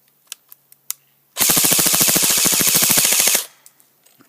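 CM16 Raider airsoft rifle firing one full-auto burst of about two seconds, a rapid even rattle that stops abruptly, with the BBs striking a pair of safety glasses. A few faint clicks come before the burst.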